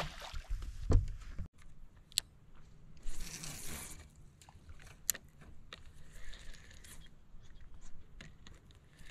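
Fishing tackle handled on a boat deck: sharp clicks and knocks from a spinning rod and reel. About three seconds in there is a second-long rush of hiss as line pays out on a cast.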